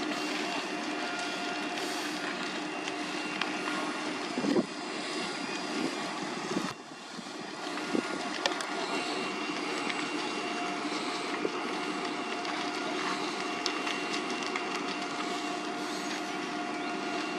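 Fire engine pump running steadily with a constant-pitch hum, with a couple of sharp knocks near the middle.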